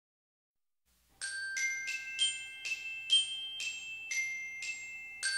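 Short mallet-percussion jingle on a glockenspiel-like sound: a melody of bright struck notes, about two a second, each ringing on, starting about a second in after silence.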